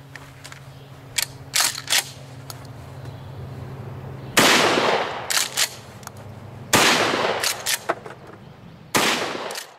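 Shotgun fired three times, a bit over two seconds apart, each report ringing out and fading, with small clicks after the shots. A few light clicks of handling come before the first shot.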